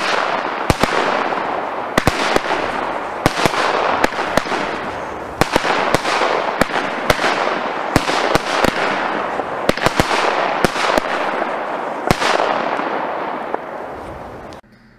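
Weco 14-Shooter firework cake firing its shots in quick succession: sharp bangs, each followed by a fading hiss from the glitter effects. The firing stops shortly before the end.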